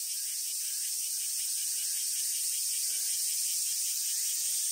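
A steady, high-pitched hiss with no clear rhythm or pitch.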